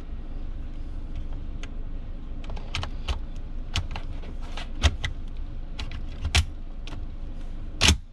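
Metal clicks and clacks from an M1 Garand as an en-bloc clip of .30-06 cartridges is pressed into its magazine. The loudest clack comes at the very end, as the bolt closes on the loaded clip.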